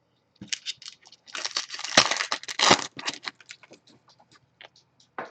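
Trading cards and a foil pack wrapper being handled, crinkling and rustling. The crinkling is densest from about one and a half to three seconds in, then thins to scattered light clicks.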